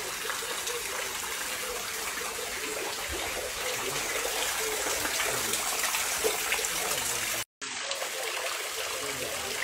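Water pouring steadily from a spout in a stone wall and splashing into a pool below: a small artificial waterfall. It drops out for a moment near the end.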